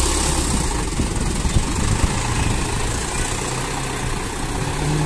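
Diesel engine of a light dump truck overloaded with rock, running steadily at low speed as the truck creeps forward, with a couple of sharp knocks about one and a half to two seconds in.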